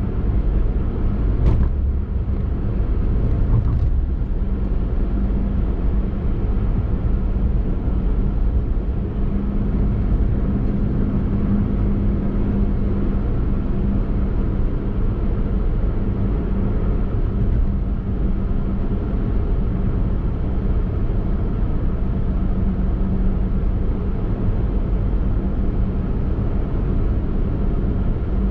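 Daihatsu Mira e:S kei car driving at a steady cruise: a steady rumble of road and engine noise with a constant hum. There is one short sharp click about a second and a half in.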